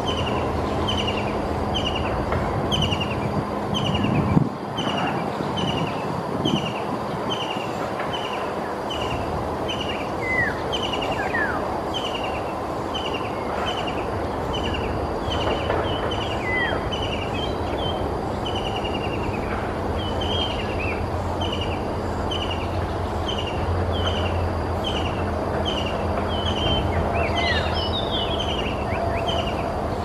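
White-throated kingfisher calling: a long, even series of short, sharp, slightly falling notes, about one and a half a second. A steady low rumble sits beneath, and a few other bird chirps sweep in briefly around a third of the way in and near the end.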